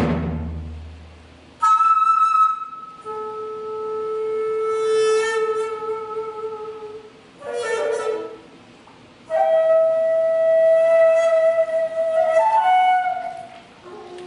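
Daegeum, the Korean bamboo transverse flute, playing slow, long held notes with bright overtones, separated by short breathing pauses, moving into a quicker ornamented phrase near the end. Deep drum strokes ring out and fade over the first second or so before the flute enters.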